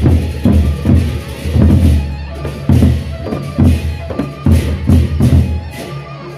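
Gendang beleq ensemble playing: the large Sasak barrel drums are struck with hand and stick in dense, interlocking strokes, over steady ringing metal percussion.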